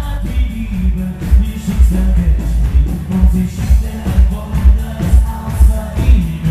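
Live pop music: a man singing into a handheld microphone over backing music with a steady, heavy beat.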